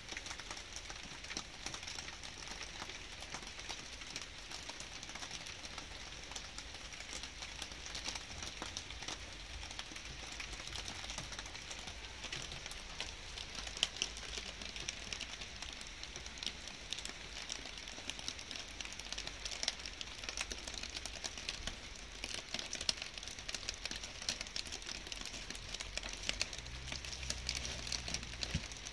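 Light rain falling: a steady hiss full of fine, quick drop ticks.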